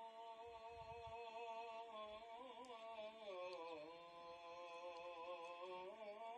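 A voice humming a slow, drawn-out chant in long held notes that step up and down in pitch.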